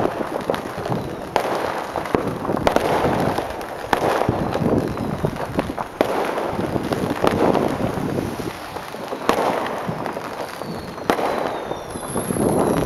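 Aerial fireworks shells bursting over a continuous rumble of further bursts, with several sharp bangs standing out a couple of seconds apart.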